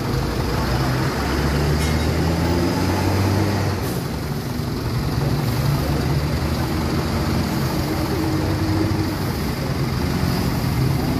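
Road traffic: a heavy vehicle's engine running steadily close by, with the general noise of passing vehicles.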